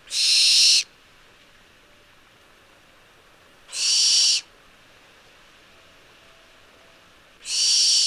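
Barn owl giving three harsh, hissing screeches, each under a second long and about three and a half seconds apart.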